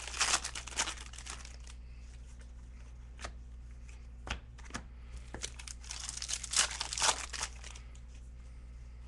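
Foil trading-card pack wrapper crinkling as it is torn open, and glossy cards flicking and sliding against each other as they are sorted by hand. The crinkling comes in two bouts, in the first second and a half and again from about five to seven seconds in, with a few single clicks between.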